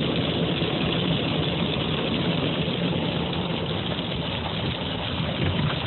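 Vehicle engine idling steadily, a low hum under an even hiss.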